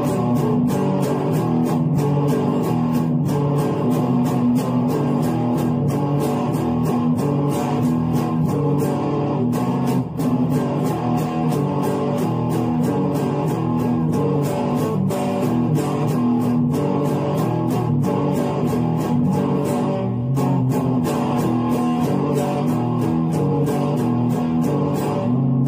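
Electric guitar played on its own, a continuous run of picked and strummed notes in a steady rhythm, with a brief drop in level about ten seconds in.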